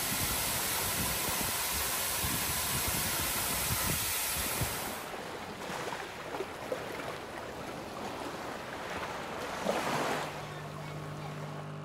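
Waterfall pouring, a steady rush of falling water, which cuts off abruptly about five seconds in. A quieter wash of sea and wind follows, with a brief swell near the end.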